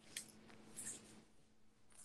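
Near silence: room tone with a faint steady hum and two soft, brief noises.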